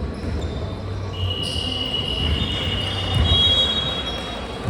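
High-pitched sneaker squeals on a basketball court, several overlapping squeaks held for a couple of seconds, over the low thuds of a basketball being dribbled.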